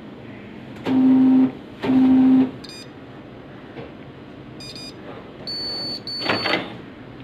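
Xerox WorkCentre 5755 copier rebooting out of service mode. It gives two low buzzing beeps about a second in, a second apart, followed by short high-pitched electronic chirps, a brief steady high tone and a short burst of noise near the end as it starts back up.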